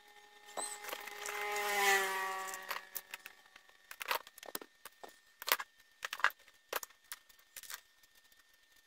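Scattered clicks and light rattles of small plastic and metal parts being handled: wires, a plug and its screws. Over the first few seconds a passing vehicle engine swells and fades, falling in pitch, and is the loudest sound.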